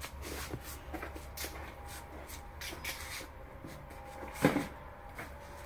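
Rustling and light knocking from things being handled and moved about, with one louder knock a little past the middle.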